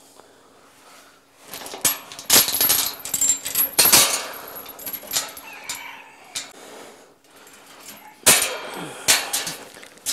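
Scuffs, rustles and clattering knocks of a person walking and nearly falling on muddy ground, with clothing rubbing against the handheld camera's microphone. There are two loud spells, one from about two to five seconds in and another shorter one near the end.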